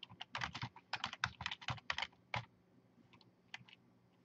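Typing on a computer keyboard: a quick run of keystrokes for the first two and a half seconds, then a few scattered taps about three and a half seconds in.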